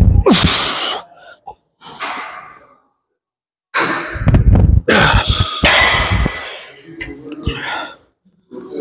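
A man breathing hard and forcefully through a set of cable pulldowns, loud rasping exhalations with short straining grunts, in two stretches: up to about a second in and again from about 4 to 8 seconds.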